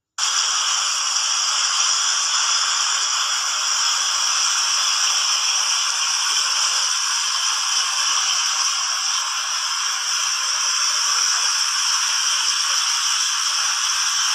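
Water fountain spray and falling water making a steady hiss, cutting in abruptly just after the start and out at the end.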